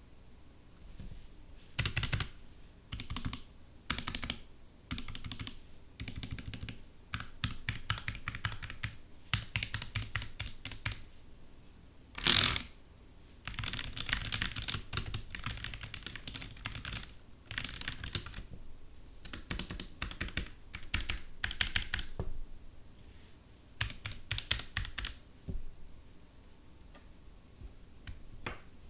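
Typing on a Dierya DK61 mechanical keyboard with silicone-lubed Gateron optical red linear switches and bandage-modded stabilizers. The key strokes come in uneven bursts, with one much louder stroke about twelve seconds in, and the typing thins out near the end.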